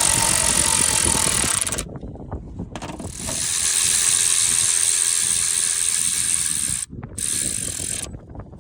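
Electric ratchet running the torque strut bolts back in, in three runs: one that stops about two seconds in, a longer one of about four seconds in the middle, and a short one near the end.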